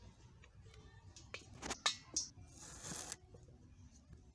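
Kitchen knife slicing a red onion on a wooden cutting board: a few sharp taps of the blade on the board in quick succession, then a short scraping hiss.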